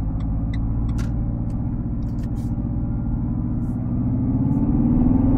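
Renault Clio IV's R-Sound Effect playing its 'motorbike Grand Prix' simulated engine sound through the cabin speakers over the diesel engine: a steady low drone that rises in pitch and grows louder near the end as the car accelerates.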